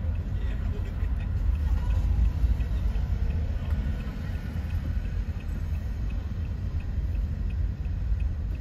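Low, steady rumble of a car driving slowly in city traffic, heard from inside the cabin: engine and tyre noise. Faint ticks come about twice a second.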